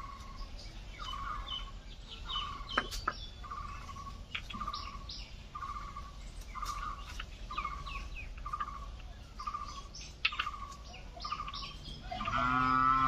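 A bird calls steadily in short repeated notes, a little under two a second, among other chirping birds, with a couple of sharp knocks. Near the end a cow moos loudly, once.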